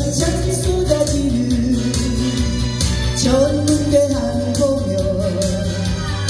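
Woman singing a Korean song live into a handheld microphone over a backing track with bass and drums, through PA speakers. She holds two long notes with vibrato.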